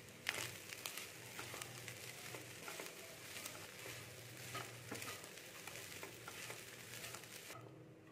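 Wooden spatula stirring and scraping rice around a nonstick pan over a low flame, with a light sizzle and many small knocks of the spatula against the pan. The sizzling cuts off suddenly near the end.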